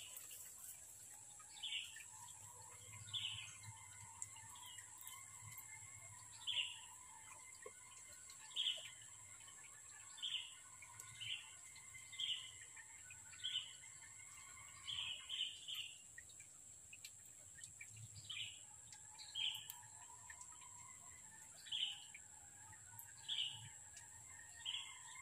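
A bird calling over and over, a short falling note every second or so, over a steady high hiss.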